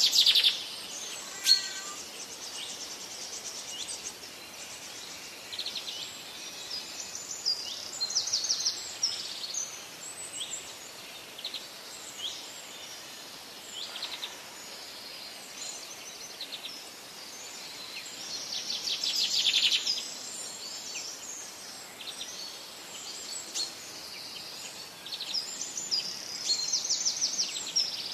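Small birds chirping outdoors, scattered high calls broken by several fast trills, over a steady outdoor hiss. A sharp knock sounds near the start.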